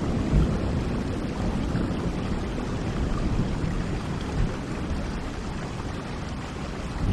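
Steady rainfall with a low rumble of thunder that fades away over the first few seconds.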